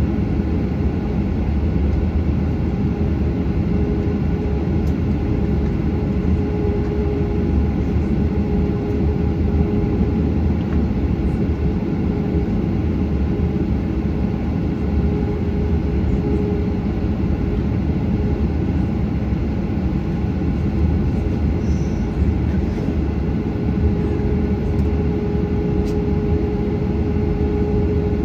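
Boeing 737 cabin noise: jet engines and airflow making a loud, steady rumble with a steady hum running through it, heard from inside the passenger cabin.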